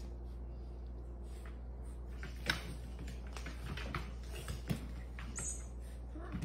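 Scattered light knocks and taps of a cat's paws landing and skidding on a hardwood floor as it pounces, over a steady low hum; the sharpest knocks come about two and a half and four and a half seconds in.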